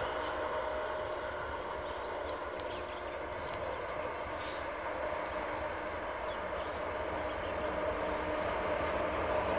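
Class 18E electric locomotives hauling a freight train toward the listener: a steady rumble with a faint hum, growing louder toward the end as the train draws near.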